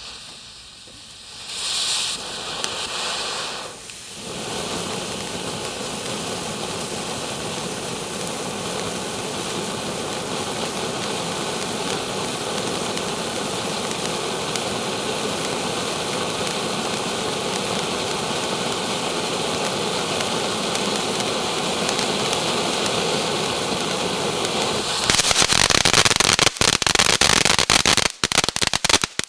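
Ground fountain firework: a short hiss about two seconds in, then a steady rushing spray of sparks, turning to a louder crackling about twenty-five seconds in.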